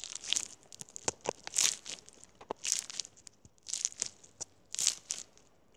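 Pink foam-bead slime (floam) squished and pressed by fingers, giving crunchy crackling and popping in short bursts about once a second, with sharp clicks in between.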